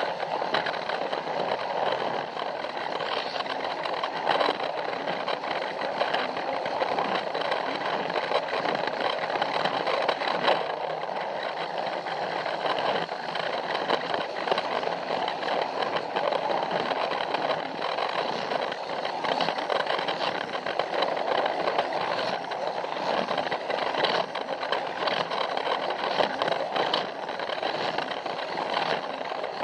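Plarail toy train running steadily along its plastic track: the small battery motor and gears make a constant whirring rattle, with a few scattered clicks.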